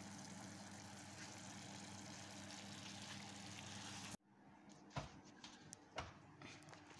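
A pan of vegetables and broth simmering on the stove, a steady sizzling hiss; it cuts off suddenly about four seconds in, followed by two sharp taps about a second apart.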